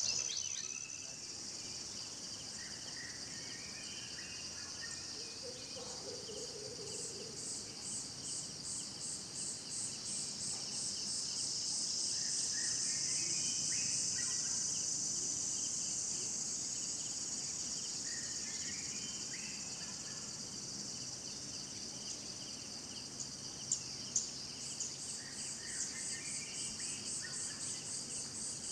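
Forest insects chirring: a steady high-pitched drone with rapid pulsing, swelling in the middle, with a few short chirps scattered over it and a couple of sharp clicks near the end.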